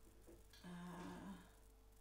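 Near silence with a short, soft hummed "hmm" from a woman about half a second in, lasting under a second and lifting slightly in pitch at the end, over a faint steady hum.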